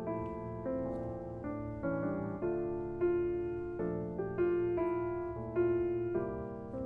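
Background music: a gentle piano piece playing a slow melody over sustained chords.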